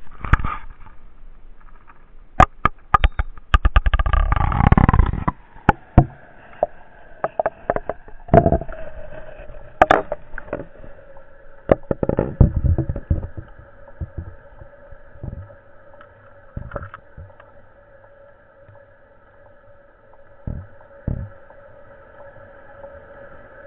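Underwater camera being handled and dipped into an aquarium: sharp knocks and bumps against the glass and housing, with a low muffled rush about four to five seconds in. After that, the aquarium's pump hums steadily, heard muffled through the water, with a few more knocks.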